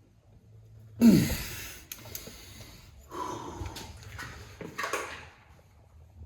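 A man grunting and breathing hard with effort, a loud strained grunt about a second in followed by several shorter heavy breaths, while straining on a wrench to torque an engine's crank pulley bolt to 181 foot-pounds.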